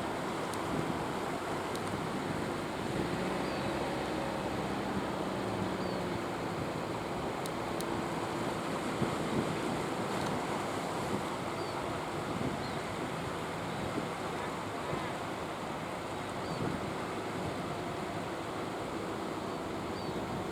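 Steady rush of sea surf and wind on the microphone, with the faint hum of a fishing boat's engine running underneath.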